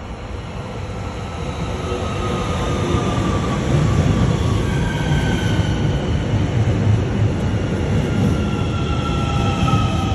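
Train arriving: a low rumble that grows louder over the first few seconds and then holds, with thin high squealing tones that drift slowly down in pitch.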